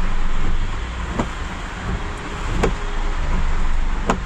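Car running, heard inside the cabin as it reverses, with a short sharp click about every one and a half seconds.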